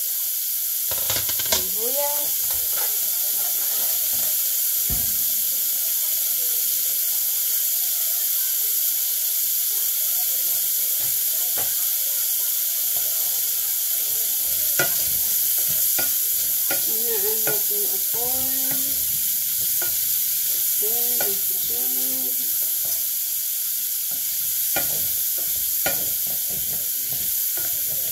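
Diced bacon and onion sizzling steadily as they fry in their own rendered fat in a stainless steel saucepan, with a few light clicks now and then.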